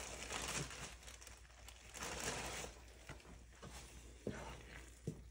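Plastic bag of flour tortillas crinkling in two rustles as a tortilla is pulled out, then a few light knocks and scrapes of a wooden spoon scooping filling in a skillet.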